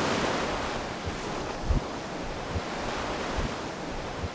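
Steady rush of ocean surf and wind, with a few short low thumps of wind on the microphone, slowly fading out.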